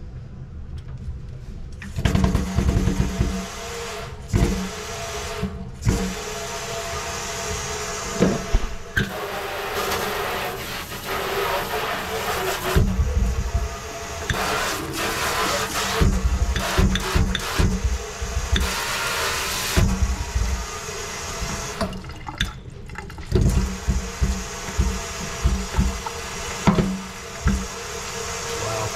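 Water from a newly installed kitchen faucet running into a stainless-steel sink, turned on about two seconds in. It runs steadily, with repeated knocks and clunks as the faucet's side sprayer and hose are handled against the sink.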